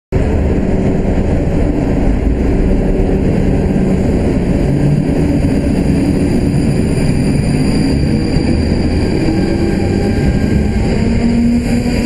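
South West Trains electric multiple unit running past on the rails: a steady loud rumble of wheels and traction motors, with a low motor tone rising in pitch near the end as it gathers speed.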